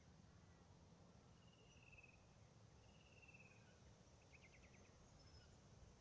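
Near silence with a faint low rumble, and faint insect chirping: two short high trills, then a quick run of about eight chirps.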